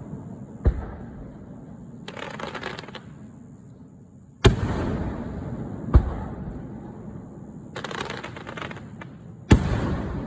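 Aerial fireworks shells bursting: four sharp booms, one less than a second in, two close together around the middle and one near the end, each trailing off in a long echoing rumble. Between the booms come two spells of rapid crackling from crackle-effect stars.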